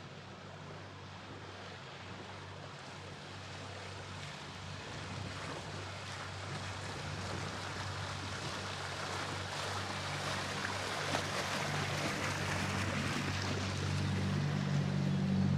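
A boat's engine running with a steady low drone, under a rush of water and wind that grows gradually louder.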